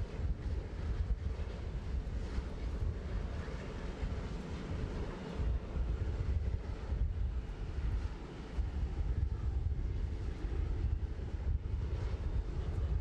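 Steady low rumble of aircraft noise, with wind buffeting the microphone.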